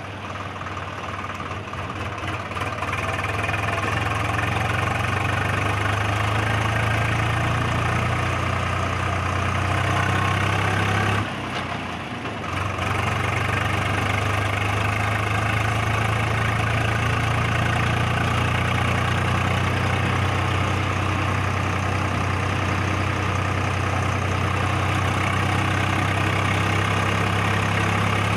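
Swaraj 735 XT tractor's three-cylinder diesel engine running steadily while hauling a loaded trolley. It builds up over the first few seconds, eases off briefly about eleven seconds in, then picks back up.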